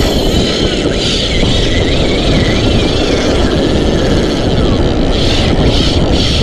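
Loud, steady rushing noise of wind and surf on an open shore, with a faint wavering high tone for a second or so near the start.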